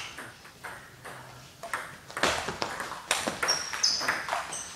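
Table tennis rally: the celluloid ball clicking sharply off bats and table, hit after hit, busier from about two seconds in, with more clicks from a second table's rally. A few short high squeaks between about three and a half and four and a half seconds in.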